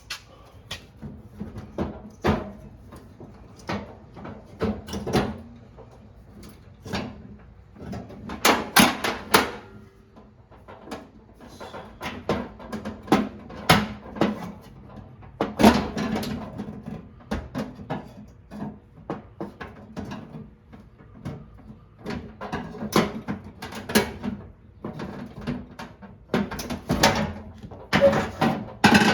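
Irregular clicks, knocks and clattering of tools and parts being handled during a lawn tractor headlight repair, coming every second or so with a few quick rattly clusters.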